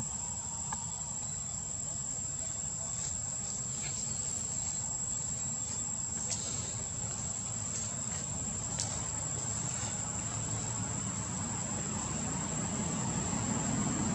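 Insects droning steadily on one high note, over a low rumble that grows louder near the end.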